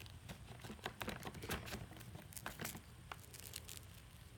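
Scattered light clicks and rustles of the vacuum's plastic hose and housing being handled, with the machine switched off.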